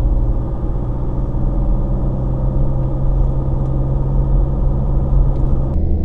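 Car driving at a steady speed, heard from inside the cabin: a steady engine hum with road rumble underneath.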